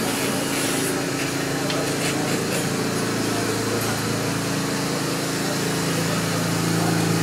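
A steady low machine hum with several held tones, like an electric motor running, over a faint room hiss; it gets a little louder near the end.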